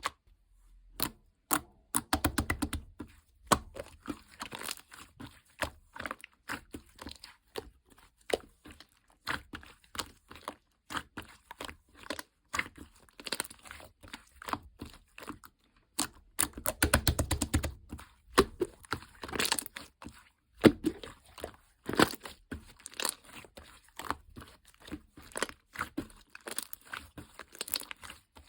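Slime being squished, stretched and poked by hand, making irregular rapid clicking and popping sounds, denser in a couple of flurries.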